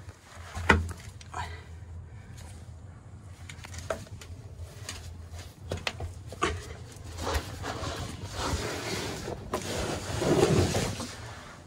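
Handling noise as a hiker squeezes between boulders: scattered scrapes and knocks of hands, clothing and the camera against rock. A rougher rubbing noise builds after about seven seconds and fades near the end.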